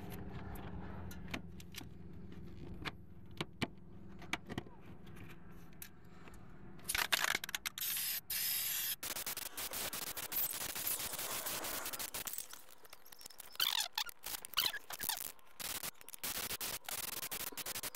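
Aerosol can of hammered-finish spray paint hissing: a short spray about seven seconds in, a long continuous spray from about nine seconds, then shorter on-and-off sprays. A low hum and light clicks come before the spraying starts.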